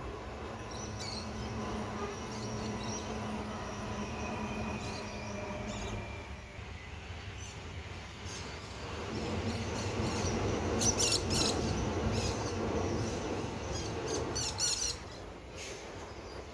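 Adelaide Metro 4000 class electric multiple-unit trains. One runs across the bridge with a steady rumble, a hum and a faint high whine. After it, the rumble of the next train grows louder from about halfway through. A few short high bird chirps sound over it, about two-thirds of the way in and again near the end.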